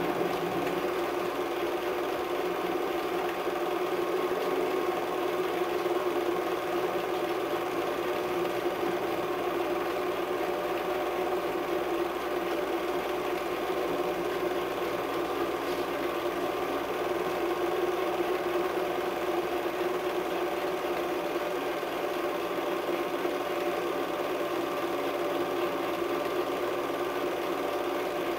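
Film projector running steadily: a constant mechanical whir and hum from its motor and film drive.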